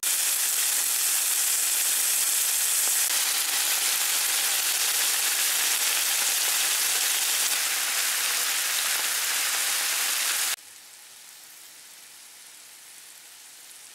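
Diced bacon, sausage chunks and onion sizzling in a hot frying pan, a steady loud hiss. The sizzle drops abruptly to a much quieter level about ten and a half seconds in.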